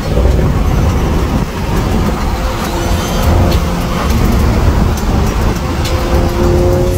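Loud, steady engine, tyre and wind noise heard inside an Audi's cabin at high speed, with a faint engine tone underneath from about halfway through.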